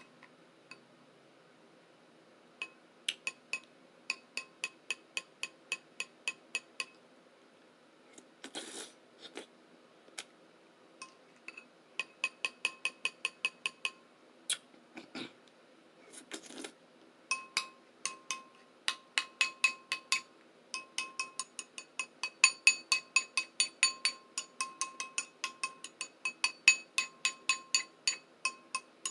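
A bowl being tapped in quick runs of about six taps a second, each tap ringing with a clear bell-like tone, with short pauses between the runs.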